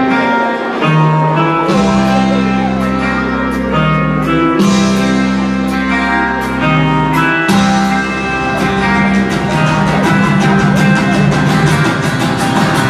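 Rock music with guitar, a bass line and a steady drum beat.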